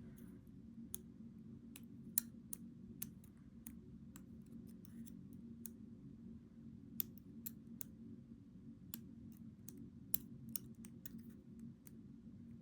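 Faint, irregular light clicks and ticks of small metal lock parts being handled, over a steady low hum.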